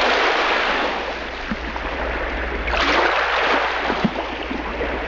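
Rushing water, a steady hiss that swells about three seconds in, over a low steady hum.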